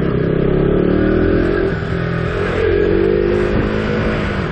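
KTM RC's single-cylinder engine running under way, the revs rising and easing off as the motorcycle is ridden, with a low rumble of wind on the microphone.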